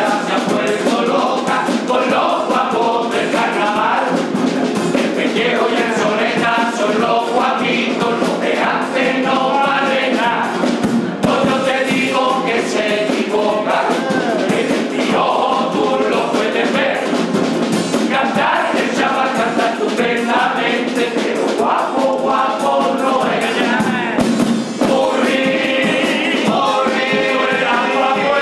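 A Cádiz carnival chirigota singing: a group of men sing a carnival song together, accompanied by strummed Spanish guitars, a bass drum and a snare drum keeping a steady beat.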